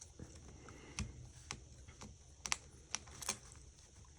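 Light clicks and taps of small repair tools and parts on an iPhone 5 being disassembled, about half a dozen spaced roughly half a second apart.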